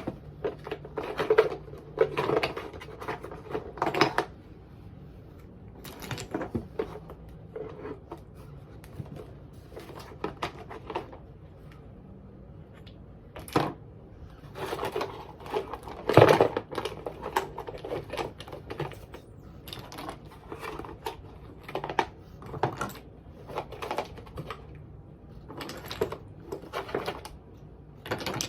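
Toy blocks being put into a shoebox a few at a time: irregular clicks and clacks, with a louder knock about sixteen seconds in.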